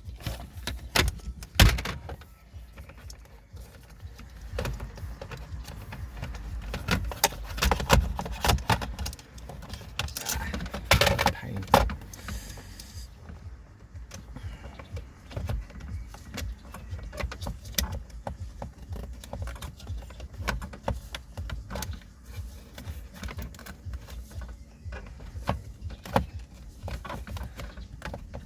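Irregular clicking, tapping and rattling of plastic parts and wiring plugs being worked by hand as a car radio head unit's connectors are plugged back in, busiest around a third of the way in. A low rumble runs underneath.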